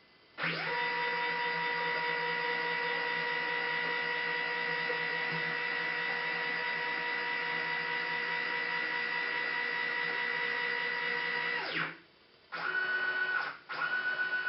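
Stepper motors of a DIY CNC machine whining as they drive a move. The pitch rises as they speed up near the start, holds steady for about eleven seconds, then falls as they slow to a stop. After a short pause come two shorter moves at a different pitch.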